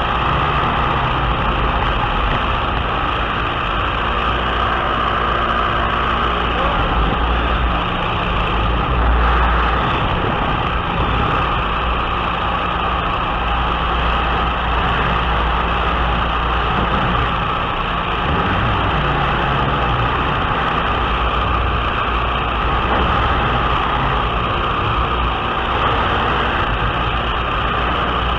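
Biplane in flight: a steady engine drone mixed with wind rushing hard over the microphone, unbroken throughout.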